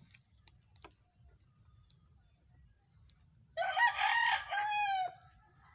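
A rooster crows once, starting about three and a half seconds in and lasting about a second and a half, its call ending on a falling note.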